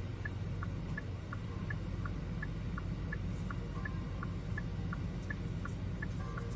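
Car's turn-signal flasher ticking in an even tick-tock, about one and a half pairs a second, over a steady low hum.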